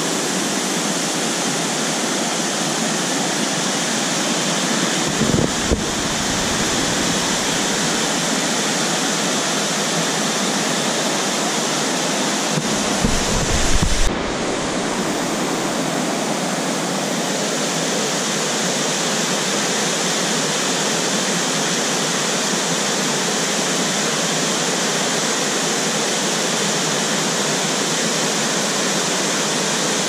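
Small waterfall rushing steadily over rocks. Wind buffets the microphone in two brief low rumbles, about five seconds in and again around thirteen seconds.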